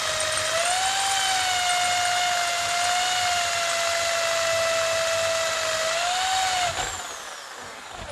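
Electric drill running with a steady high whine while drilling a piece of flat steel, its pitch shifting slightly under load. About seven seconds in it is switched off and winds down.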